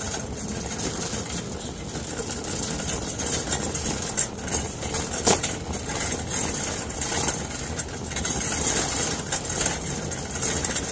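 Shopping cart rolling across a store floor: a steady rolling noise with a few sharp clicks, the loudest about five seconds in.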